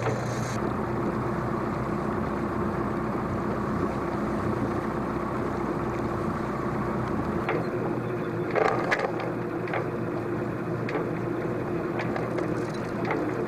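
Sailboat's inboard auxiliary engine running steadily at low speed, a constant drone under the boat. A short burst of noise comes about two thirds of the way through, and a few light clicks near the end.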